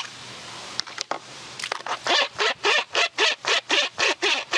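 Wet sponge brush scrubbing around a wheel's lug nuts in quick back-and-forth strokes, about four a second. The strokes start after a quieter first second and a half that holds one short click.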